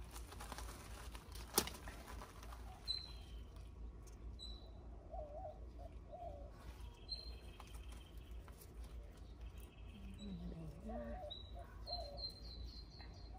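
Backyard birds: short high chirps now and then, with a quick run of chirps near the end, and a dove cooing about 5 seconds in and again around 10 to 11 seconds. A single sharp click comes about a second and a half in.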